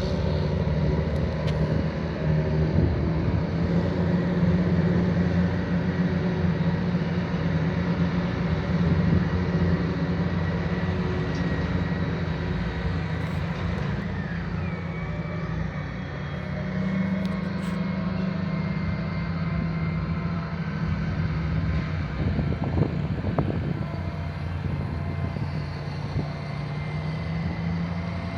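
John Deere 8R loader tractors' diesel engines running steadily while packing rye silage, the engine note shifting up and down a little as they work.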